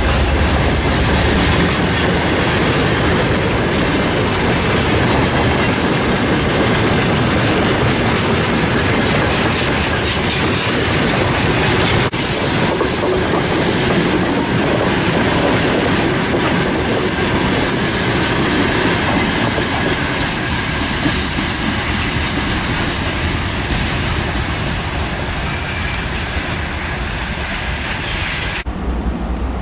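Freight train of open gondola wagons rolling past close by, wheels clattering over the rail joints with some wheel squeal. The noise slowly fades over the last several seconds as the train draws away.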